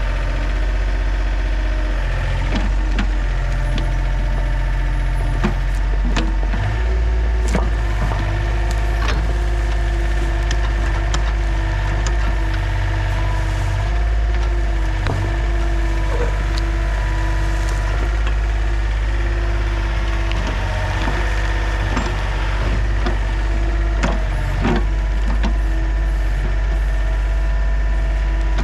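Compact excavator's diesel engine (a Yanmar-built John Deere 30) running steadily under hydraulic load, its note shifting a few times as the machine works. Many sharp cracks, snaps and knocks are scattered throughout, like wood or roots breaking under the bucket.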